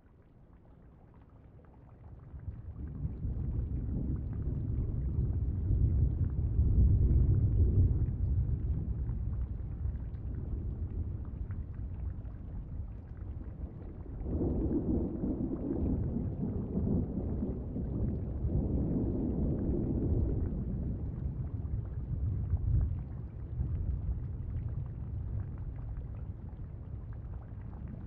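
A low rumble that fades in over the first few seconds, is loudest about six to eight seconds in, and swells again from about fourteen seconds in.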